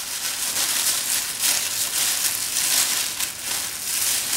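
Thin plastic bag crinkling and rustling in uneven swells as its handles are twisted and tied together.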